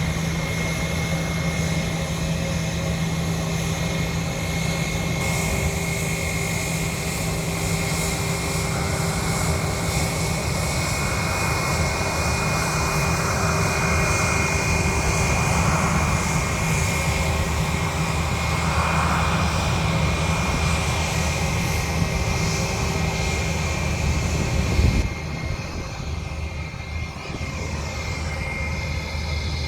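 Airplane engines running during a takeoff: a steady drone with a high held tone over a low rumble. A brief sharp bump comes near the end, after which the sound is quieter.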